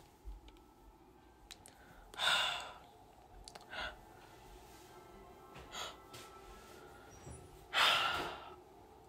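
Two breathy exhalations, like sighs, about two and eight seconds in, with smaller breaths between them, over faint background music.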